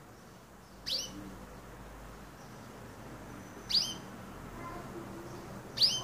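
Canary calling: three short chirps, each sweeping up in pitch, spaced a couple of seconds apart.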